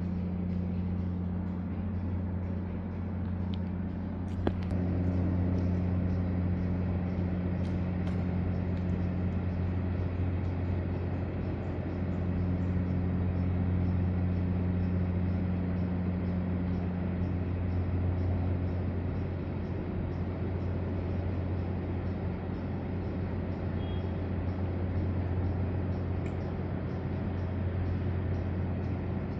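A steady low mechanical hum, like a machine or engine running, holding level throughout. A single sharp click comes about four and a half seconds in.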